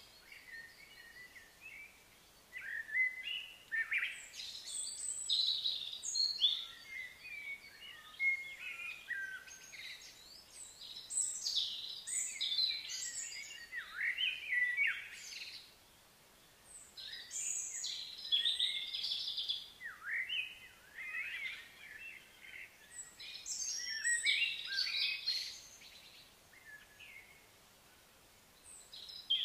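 Birds chirping and singing, a busy run of quick high chirps and sliding notes that comes in bouts with short lulls between them.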